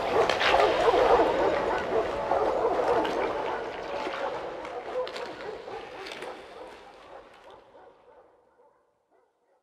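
Dogs barking and yelping, fading out gradually until gone shortly before the end.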